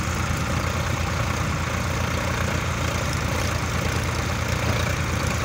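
Tractor diesel engine running steadily with a fast, even low throb.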